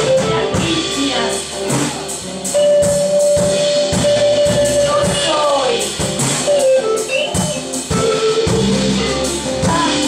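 Live band playing: electric guitar with drum kit and cymbals keeping a steady beat, and one note held for about three seconds near the middle.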